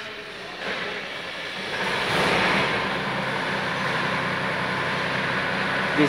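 A heavy engine running: its noise swells over the first two seconds, then holds steady with a low drone.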